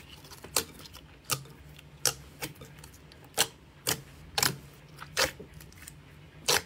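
Soft slime being squeezed and poked by fingers in a glass bowl, giving about nine sharp, irregularly spaced clicks and pops.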